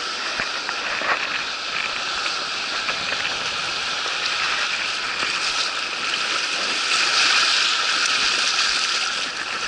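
Shallow surf washing and fizzing over sand, a steady hiss of foaming water that swells louder about seven seconds in as a wave surges in.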